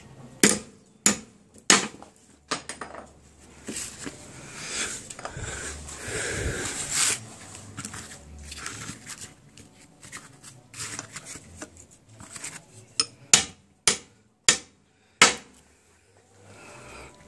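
Claw hammer striking a bent motorcycle gear-shift lever to straighten it, sharp metallic blows. Three blows come near the start, then a stretch of rustling handling noise, then a quicker run of five blows near the end.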